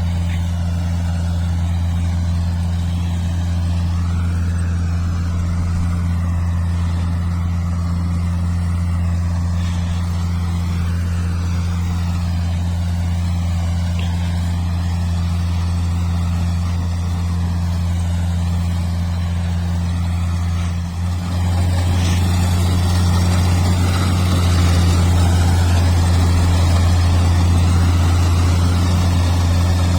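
Kubota rice combine harvester running, its diesel engine giving a steady low drone. About two-thirds of the way through the sound dips briefly, then comes back slightly louder.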